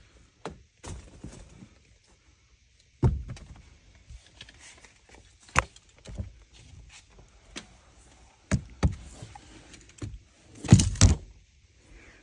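Scattered knocks, clicks and rubbing from handling around a car's front seat: a sharp knock about three seconds in, a few more clicks and knocks, then a loud cluster of knocks near the end.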